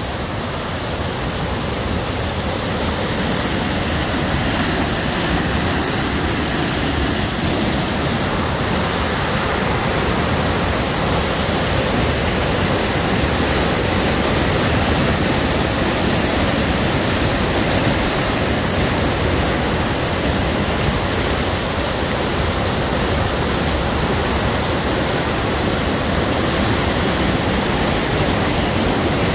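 Rain-swollen river in flood pouring over a low dam: a loud, steady rush of churning whitewater, growing a little louder over the first few seconds.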